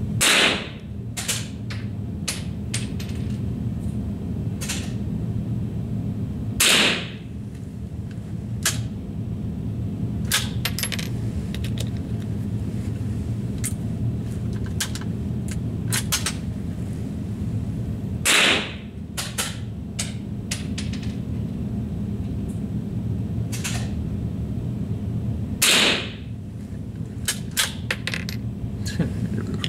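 Four rifle shots, spaced several seconds apart, with quieter clicks and knocks between them over a steady low hum.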